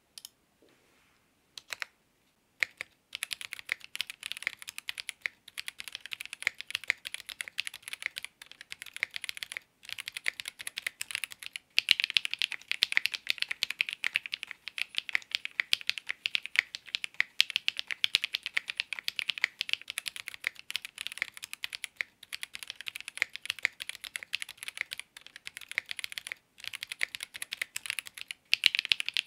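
Typing on a ZoomTKL mechanical keyboard fitted with Ceptify linear switches, an FR4 plate and GMK keycaps. A few single key clicks give way, about three seconds in, to a fast, steady run of keystrokes with brief pauses.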